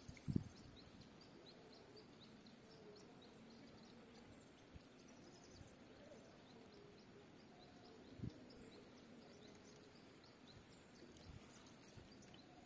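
Near silence: faint open-air ambience with soft high chirps repeating every half second or so, and two soft low knocks, one just after the start and one about eight seconds in.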